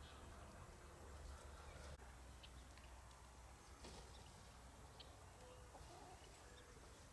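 Near silence: faint outdoor ambience around foraging chickens, with a few scattered soft high chirps and ticks over a low rumble.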